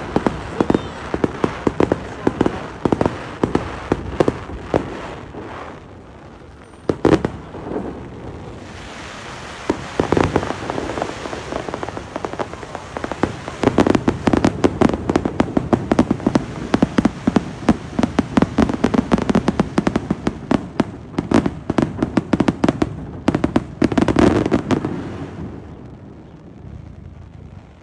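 Aerial fireworks bursting in dense, rapid crackling volleys. A brief lull about six seconds in is broken by a single louder bang, then the crackling builds again and dies away near the end.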